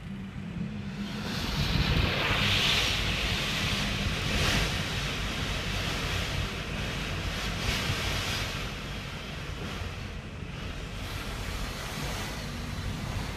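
Typhoon wind and rain. Gusts swell to a loud peak about two seconds in and ease off after, with low buffeting from wind on the microphone.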